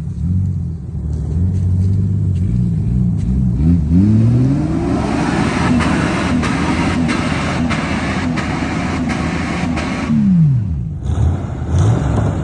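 Jeep ZJ Grand Cherokee engine being revved: the pitch climbs a few seconds in, holds high for about five seconds, then drops back toward idle, with one more short blip of the throttle near the end.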